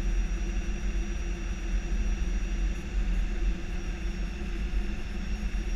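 Steady flight-deck noise of an Airbus A319 descending on final approach: a low rumble of airflow and engines, with a thin steady high whine over it.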